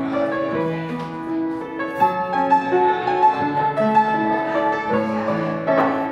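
Piano music with a melody of sustained notes.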